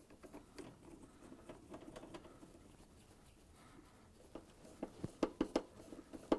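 Faint ticking and scraping of a hand nut driver turning a screw into a refrigerator's sheet-metal access panel, with a handful of sharper metal clicks in the last two seconds.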